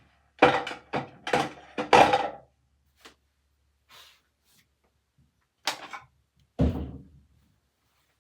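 A quick run of several knocks and thuds in the first two seconds or so, then two more single knocks a few seconds later.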